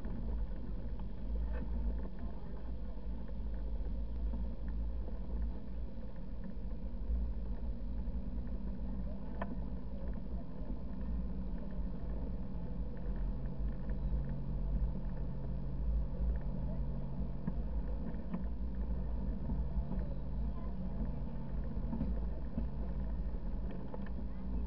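A car driving slowly on a sandy dirt road: steady low rumble of tyres and road noise under a constant engine hum. There are a few faint knocks from bumps.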